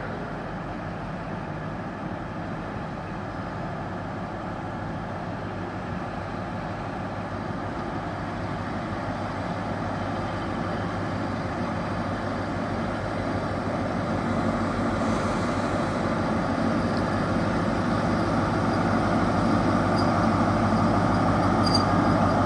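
Class 43 HST power car's diesel engine running with a steady low hum as the train draws slowly into the platform, growing steadily louder as it comes closer.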